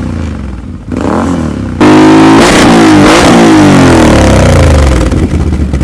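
Can-Am Outlander XMR 1000 ATV's V-twin engine breathing through a Yoshimura exhaust: a short throttle blip about a second in, then a hard rev at about two seconds. The rev is held loud for a moment and then falls back toward idle near the end.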